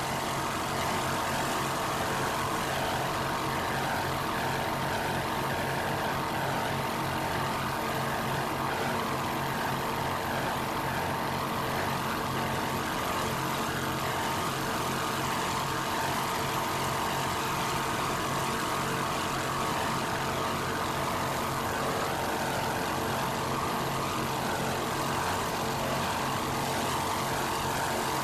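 Twin 425-horsepower Mercury inboard engines of an offshore race boat running hard. The engines make a steady, unbroken drone that neither rises nor falls.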